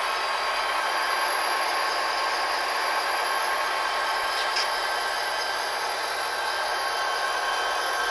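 Several model diesel locomotives' sound decoders playing idling prime-mover sound together through their small speakers: a steady, even drone with little bass.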